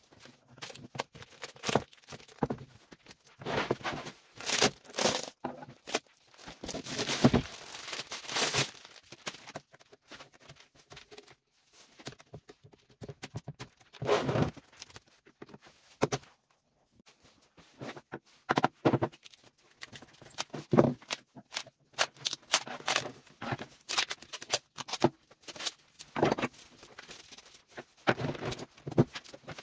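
Cured epoxy-and-wood tabletop being pried and peeled off its white melamine mould board: irregular cracking, scraping and knocking of board and resin, with a few longer tearing noises as the mould comes away.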